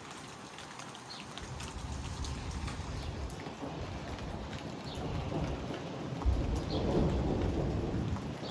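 Rain and gusty wind in a severe thunderstorm, with scattered drops ticking. A louder low rumble sets in about six seconds in and swells for a second or two.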